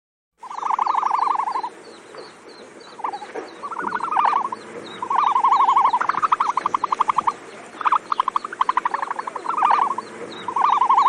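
Ostrich calls: a series of rapid rattling trills, each about half a second to a second long, some overlapping, with a run of small high chirps behind them.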